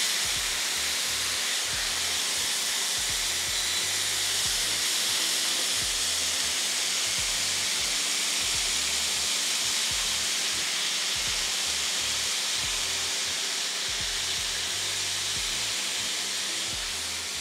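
Steady sizzling hiss of a beef and vegetable stir-fry in a hot frying pan as noodles are tipped in and steam comes off.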